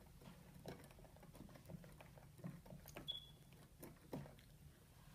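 Faint irregular clicking and tapping of the plastic keys of a keytar-style keyboard controller being played, with no notes sounding. A brief faint high squeak comes about three seconds in.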